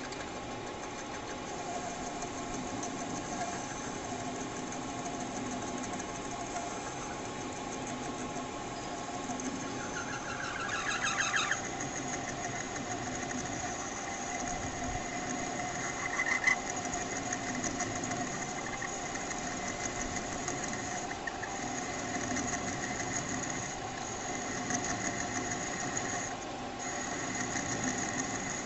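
Metal lathe running while a single-point tool turns a metal rod, cutting off curly chips. It is a steady machine hum with a constant high whine, briefly louder and shriller about ten seconds in, with a short sharp sound a few seconds later.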